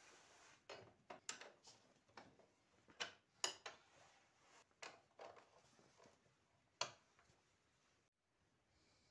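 Faint, irregular clinks and knocks of a spanner, bolts and washers being handled while a steel clamping strip is bolted onto a rubber conveyor-belt mud flap. The loudest knocks come about three and a half and about seven seconds in, and the sounds stop about eight seconds in.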